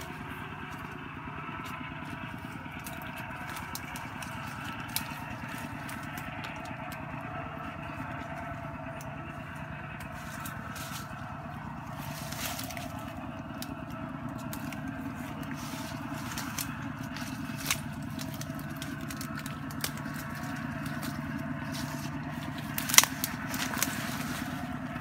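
Twigs and dry leaves crackling and snapping as someone pushes through forest undergrowth, over a steady low hum. A cluster of sharper snaps comes near the end.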